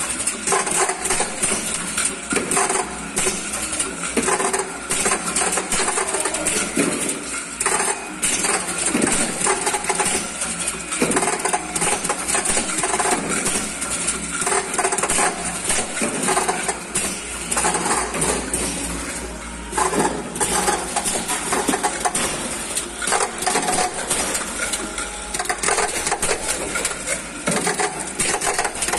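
Electronic camera-system tablet-counting machine running, with a continuous dense clatter of small hard pills dropping through its chutes into bottles. A low steady hum from the machine comes in during the second half.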